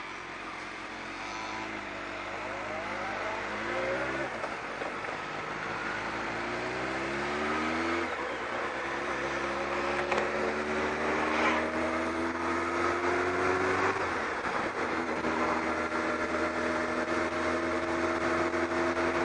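Kawasaki ZX-12R's inline-four engine pulling away from a standstill and accelerating up through the gears. Its pitch rises in each gear and drops back at the shifts, about four, eight and fourteen seconds in, then holds steady at a cruise.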